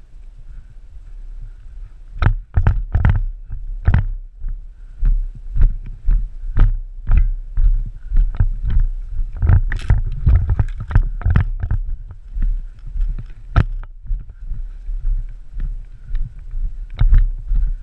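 Footsteps of a person walking outdoors, a run of heavy thuds about two a second that starts about two seconds in and eases off near the end.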